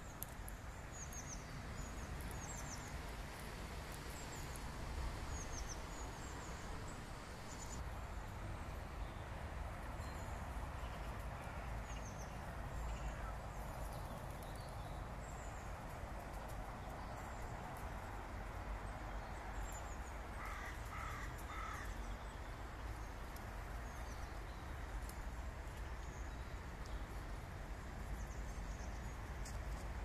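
Outdoor park ambience: small birds give short high chirps again and again, and about twenty seconds in a crow caws three times in quick succession, over a steady low rumble.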